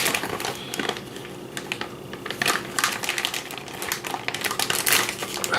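Crinkling and rustling of a plastic package of sliced deli turkey being handled, with irregular small clicks and crackles.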